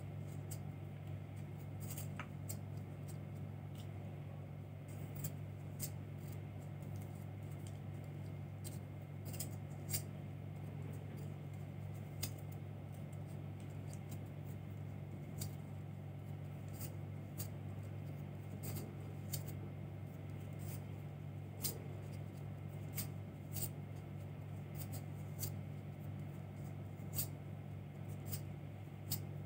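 Red yarn being wrapped by hand around a clear plastic hoop, making faint, irregular clicks and scratches about once a second or so. A steady low hum runs underneath.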